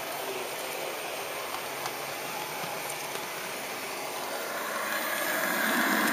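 Model train running along its track, a steady mechanical rattle of small wheels on the rails with motor noise, growing louder near the end.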